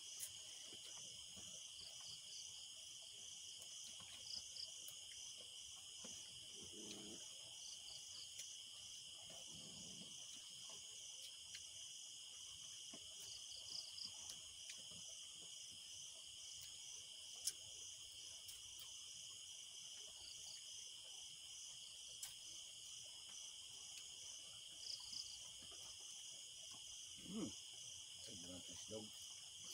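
Faint night chorus of crickets and other insects: a steady high trill with a second, pulsing trill above it.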